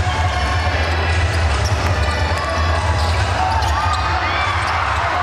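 Basketball game play: the ball bouncing on the court and sneakers squeaking in short glides, over voices and a steady low rumble.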